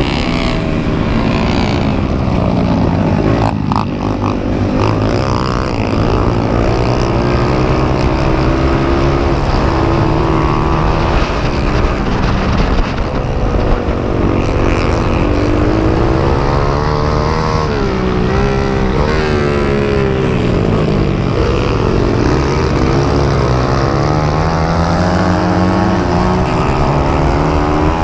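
Honda XR100 air-cooled four-stroke single-cylinder dirt bike engine under hard racing throttle, its pitch repeatedly climbing and dropping through throttle and gear changes.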